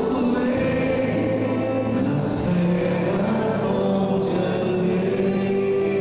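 A hymn sung in a church, several voices singing together with instrumental accompaniment, led by a voice on a microphone.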